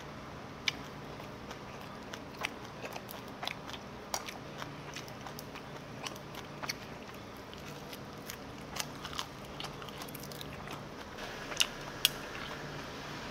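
A person chewing a mouthful of spicy stir-fried pork wrapped in a perilla leaf with rice, close to the microphone. Scattered small clicks and crunches come through the chewing, over a faint steady hum.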